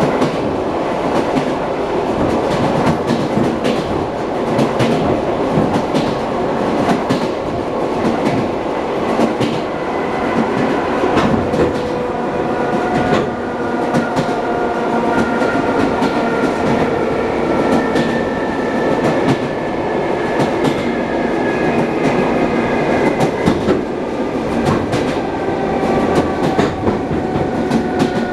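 Wheels of an ED9M electric multiple unit clattering over rail joints at running speed, heard from inside the passenger car over a steady rumble. From about halfway through, a thin whine joins in and drifts slightly in pitch.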